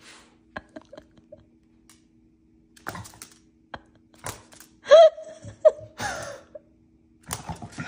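Light scattered clicks and taps, and about five seconds in a short, high-pitched, whine-like vocal sound whose pitch bends, over a faint steady hum.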